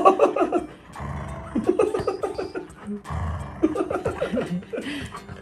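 Golden retriever growling in two short low rumbles while tugging on a rope toy, a playful tug-of-war growl, with a man laughing between the growls.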